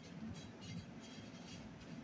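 Faint, soft scraping as the seeds and flesh are scooped out of a halved zucchini.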